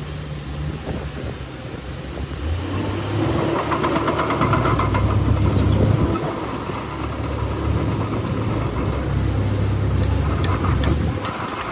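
Heavy diesel engine of earthmoving machinery running steadily, growing louder a couple of seconds in, with a brief high-pitched squeak about halfway through.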